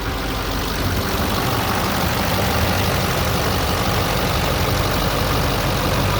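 Duramax 6.6-litre V8 turbodiesel of a 2010 Chevrolet Silverado 3500HD idling steadily, getting a little louder in the first second.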